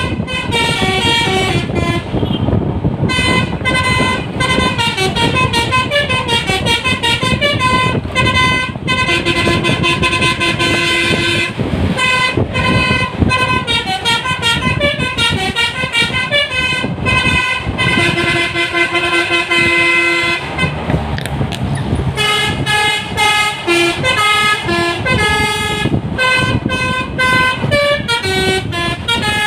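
Basuri telolet multi-tone bus horn playing rapid melodic runs of notes, with two short breaks, over the low rumble of the bus engine and road.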